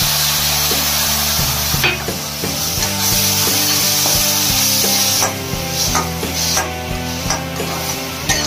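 Tomato puree sizzling loudly in hot oil in a metal kadhai as a flat metal spatula stirs and spreads it. The sizzle drops off about five seconds in, leaving separate scrapes and taps of the spatula against the pan.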